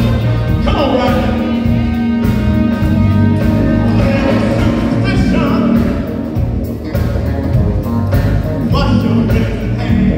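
Live band playing with a horn section of trumpet and saxophone, drum kit, electric guitar and keyboards, and a singer over a steady beat.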